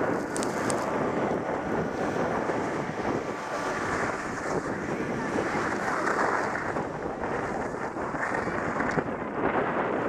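Wind rushing over the microphone of a body-worn action camera on a skier coming downhill, mixed with the hiss of skis sliding over packed, groomed snow; a steady rush that swells and fades a little.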